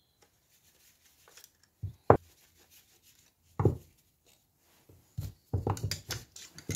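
Handling knocks and clicks of a car wiper motor being taken apart on a workbench with a screwdriver. A couple of sharp knocks come about two seconds in and another near four seconds, then a quicker run of clatter and rattling near the end as the housing comes apart.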